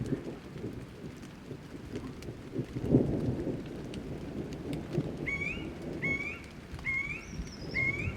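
Thunder rumbling low over steady rain, swelling loudest about three seconds in. From about five seconds a bird repeats a short rising call roughly once a second.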